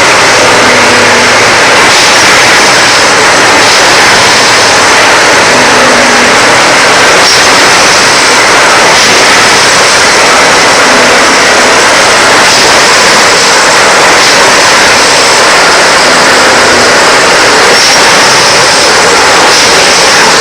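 Train running, a loud steady rushing noise that never lets up.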